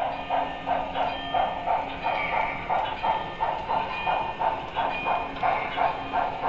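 Sound decoder of an HO-scale Broadway Limited Paragon 3 2-10-4 steam locomotive playing rhythmic exhaust chuffs, about three a second, over a steady hum.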